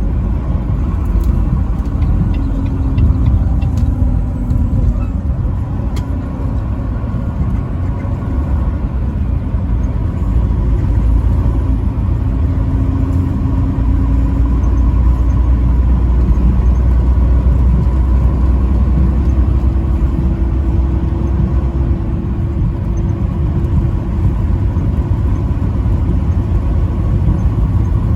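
Truck driving on the road: a steady low rumble of engine and road noise, with a faint hum that drifts slightly in pitch.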